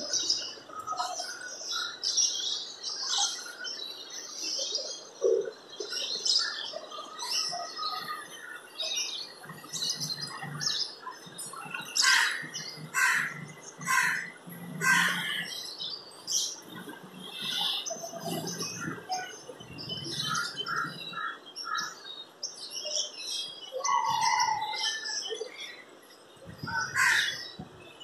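Small birds chirping over and over in quick short notes, with a few short low sounds underneath.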